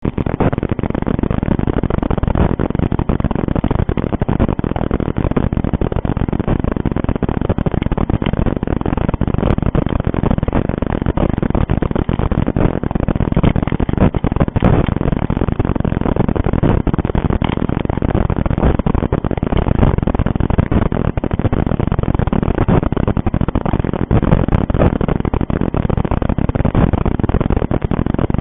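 Steady loud hiss with constant crackle from a cheap surveillance camera's microphone; no clear event stands out.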